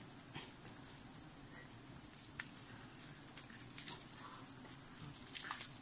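Steady high-pitched chirring of forest insects, with a few scattered soft clicks and snaps.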